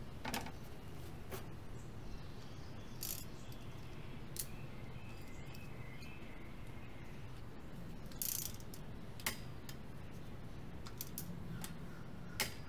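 Scattered metallic clicks and taps from hands fitting a bicycle crankset, with a wrench working on the crank arm near the end. Faint bird chirps sound in the background.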